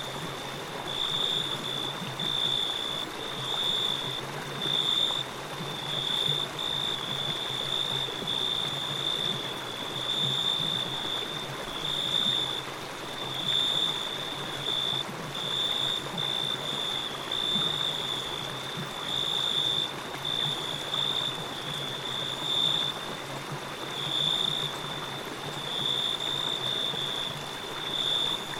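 Running stream, a steady rushing of water, with a high-pitched chirping that pulses on and off about once a second over it.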